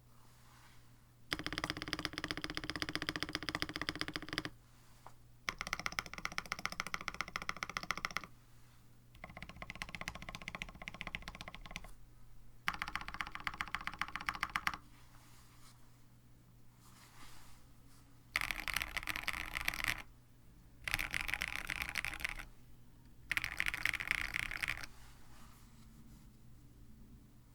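Mechanical keyboard being typed on in fast bursts of rapid keystrokes, about seven bursts of a few seconds each with short pauses between: a KBD67 Lite with an FR4 plate and JWK Penyu linear switches lubed with Krytox 205g0, under GMK-style keycaps.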